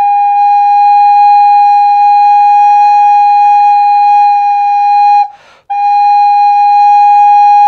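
Full-length recorder, foot joint attached, sounding one long steady note for about five seconds. It breaks off for a quick breath and the same note comes back. The player is adjusting breath pressure to find where the full pipe resonates.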